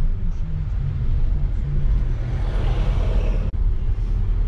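Road and engine noise heard inside a moving car's cabin: a steady low rumble, with a louder hiss that swells past the middle and cuts off abruptly.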